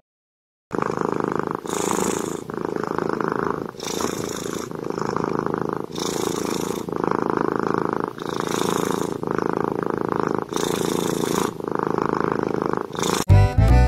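Ginger kitten purring while its head is stroked, the purr pulsing in even cycles about once a second.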